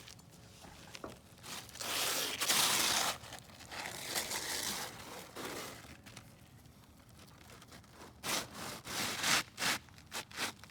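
A new roof shingle being slid and scraped into place under the shingles above it: two longer scraping strokes, then a run of short scrapes and rustles near the end.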